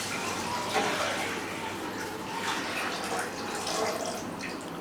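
About a litre of water being poured into a kadhai, a deep wok-like cooking pan, on the stove, a continuous pour with brief surges.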